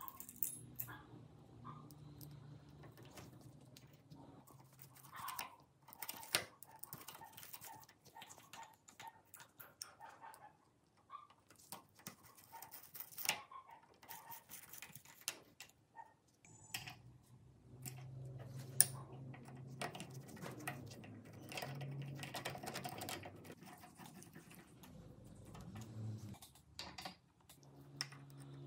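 Small screws being driven with a screwdriver into a restored bench vise's end cap and jaw plate: scattered light metal clicks and scrapes as the screwdriver tip and screws turn and the parts are handled, with a low hum at times.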